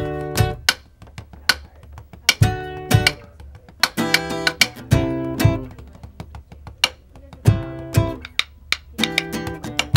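Music: an acoustic guitar played in a brisk, rhythmic strumming pattern, chords broken by sharp percussive hits. It is the instrumental part of the song before the vocals come in.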